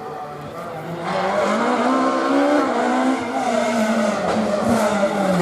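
Peugeot 306 Maxi rally car's naturally aspirated four-cylinder engine running hard at high revs. It gets louder about a second in, its pitch rises, then eases slowly down.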